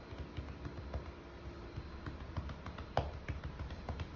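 Scattered light taps and clicks at an irregular pace over a low room hum, with one sharper knock about three seconds in.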